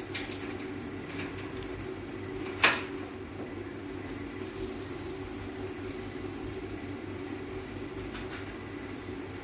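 Breadcrumb-coated chicken balls deep-frying in hot oil in a karahi: steady sizzling and bubbling with a low hum underneath. A single sharp knock sounds about two and a half seconds in.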